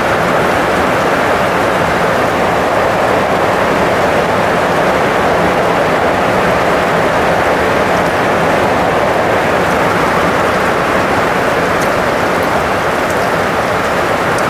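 Loud, steady rushing noise without pitch, with a few faint sharp clicks near the end.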